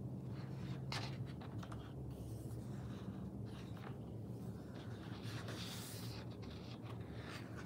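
Paper pages of a picture book rustling and brushing as they are turned back and forth by hand, in several soft strokes, over a faint steady low hum.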